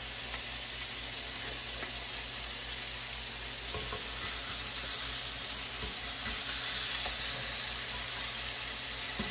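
Hamburger patties sizzling steadily as they fry in a hot cast iron skillet, with a couple of faint clicks partway through.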